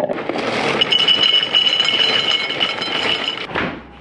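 Small electric kitchen appliance running at high speed, a steady high whine with hard contents clinking and rattling inside, switched on just after the start and stopping about three and a half seconds in.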